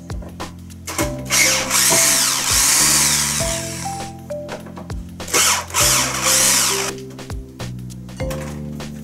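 Cordless drill running against a wooden layout board in two runs: the first about two and a half seconds long, the second shorter, about a second and a half. Light background music plays throughout.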